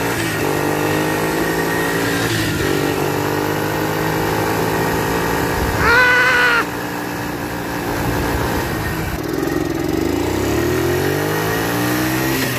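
Kazuma 50cc kids' ATV engine running under way, its revs falling about nine seconds in and climbing again. A brief, loud, high-pitched tone cuts in about six seconds in.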